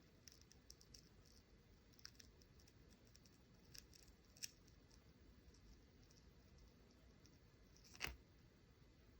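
Near silence with a few faint, light clicks and ticks from handling the phone and tools, and one sharper click about eight seconds in.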